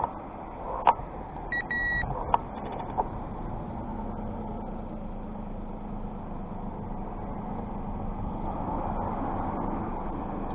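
A vehicle running steadily, a low hum under an even rushing noise, with a short high beep about one and a half seconds in.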